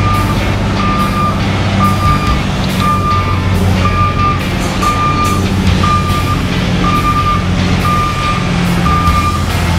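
Semi-truck reverse alarm beeping steadily, about one beep every 0.8 seconds, as the tractor-trailer backs up. The truck's diesel engine hums underneath.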